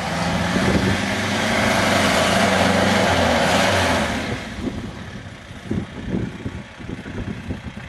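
Off-road 4x4's engine revving hard as it pushes through a muddy ditch, loudest for the first four seconds, then easing off to a lower, rougher running with scattered knocks.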